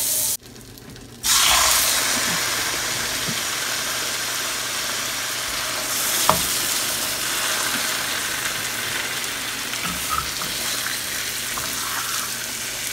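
Raw pork chops frying in melted butter in a hot pan: a steady sizzling hiss that sets in after a brief drop about a second in, with a few faint ticks as the chops are laid in.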